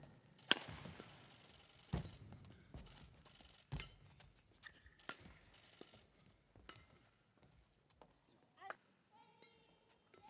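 Badminton rally: rackets striking a shuttlecock about every one to two seconds, the sharpest hit about half a second in. A few shoe squeaks on the court floor near the end.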